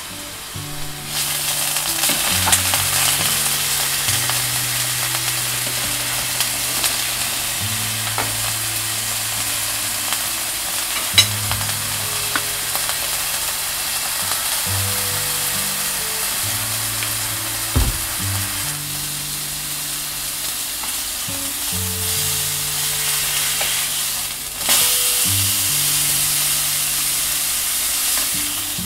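Beef steak sizzling and frying in hot oil in a nonstick frying pan. The sizzle swells about a second in and grows louder again near the end. Soft background music plays low underneath.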